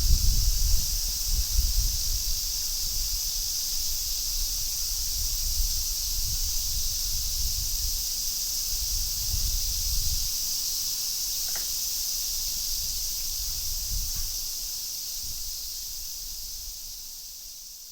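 Wind gusting through trees and rumbling on the microphone, strongest in the first half, over a steady high insect chorus. The sound fades out near the end.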